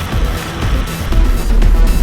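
Background electronic music with a steady beat and heavy bass, growing louder about one and a half seconds in.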